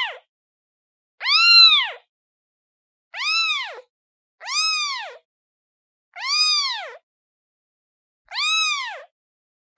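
Kitten meowing repeatedly: five high meows, each rising and then falling in pitch, about one every one and a half to two seconds.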